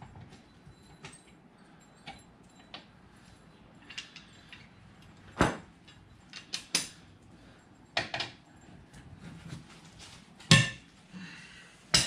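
Scattered sharp metal clinks and clanks of hand tools being handled and knocked against metal while working on an ATV's rear wheel, about seven in all; the loudest comes about ten and a half seconds in.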